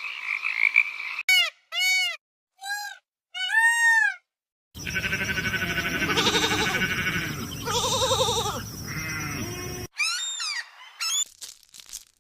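Edited run of animal calls: first four short calls that rise and fall in pitch, then a loud bleating stretch of about five seconds from about five seconds in, then more short calls and clicks near the end.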